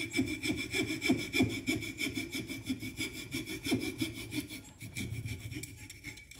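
Hand coping saw cutting through a block of soft tupelo wood in quick, even back-and-forth strokes; the sawing stops near the end.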